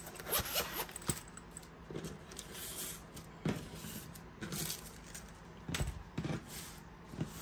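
Frosted plastic cash envelopes being handled and slid across a wooden tabletop: scattered light clicks, taps and short scrapes at irregular intervals.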